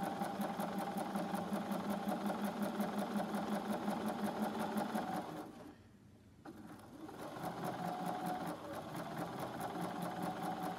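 Bernina sewing machine stitching a seam at a steady speed, stopping for about a second midway, then starting up again.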